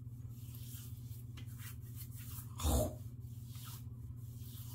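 Hands patting and rubbing aftershave splash onto a freshly shaved face: faint soft pats and skin rubbing over a low steady hum, with one short vocal noise a little past halfway.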